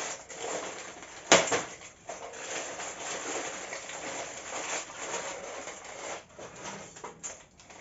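Plastic packaging rustling and crinkling as new kitchenware is unwrapped by hand, with one sharp knock about a second in.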